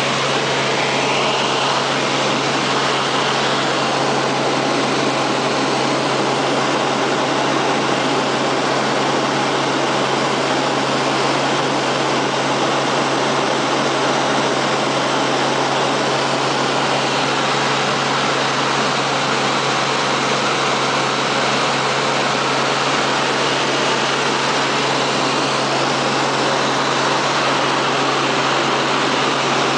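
Steady, unchanging engine drone and rushing noise of a moving vehicle, with a constant low hum underneath.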